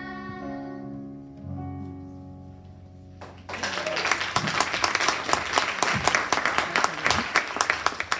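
A song's final held notes fade out, and about three seconds in an audience starts applauding, a dense clapping that carries on and is louder than the music was.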